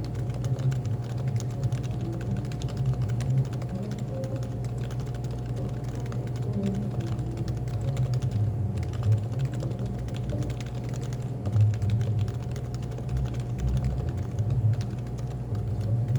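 Continuous fast typing on a Happy Hacking Keyboard (HHKB), a rapid irregular patter of keystrokes, over soft background music.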